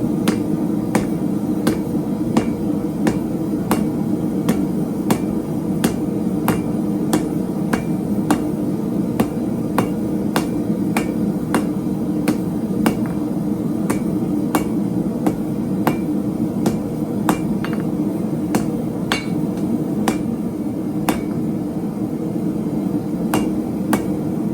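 Hand hammer striking steel bar stock on an anvil during hand forging, at a steady pace of about two blows a second, over a constant low rushing noise.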